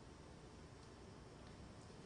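Near silence: faint room tone in a pause between readings.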